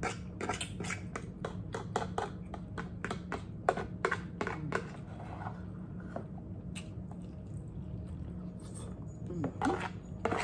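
A plastic spoon clicking and scraping against a plastic food container, with chewing. Quick clicks come in a close run for about the first five seconds, fall quiet for a few seconds, then pick up again near the end.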